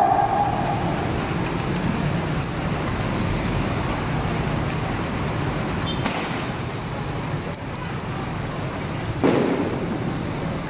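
Steady street traffic noise from motorcycles and cars on the road. There is a sharp crack about six seconds in and a louder short burst about nine seconds in.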